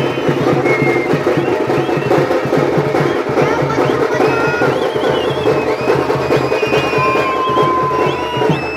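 Tamate frame drums beaten in a fast, dense rhythm by a street procession band, with high whistling tones wavering over the drumming.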